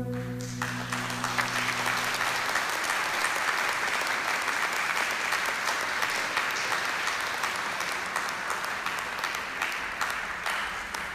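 Audience applauding at the end of a dance performance, tailing off near the end. The last held notes of the dance music die away in the first couple of seconds.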